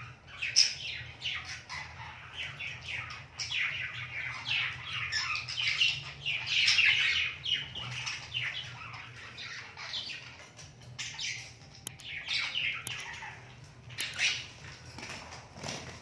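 Budgie (budgerigar) chirping and warbling in quick chattering runs, with a few sharp clicks in the second half.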